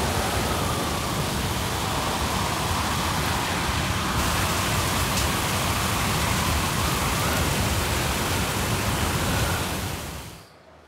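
Hurricane wind and driving rain: a steady rushing roar with a faint howl that rises and falls, fading out shortly before the end.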